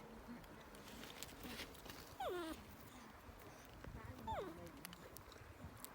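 Baby monkey giving two short whimpering calls, each sliding down sharply in pitch, about two seconds apart.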